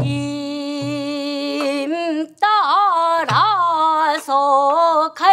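Female pansori singer holds one long note, then bends and wavers it through sliding, shaking pitches. A buk barrel drum accompanies her with a few dull low strokes and a sharp click near the end.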